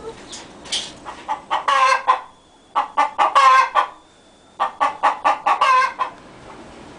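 Barred Plymouth Rock hen cackling in three loud bouts: each is a run of quick clucks that rises into a longer drawn-out call. This is the egg song hens give around laying.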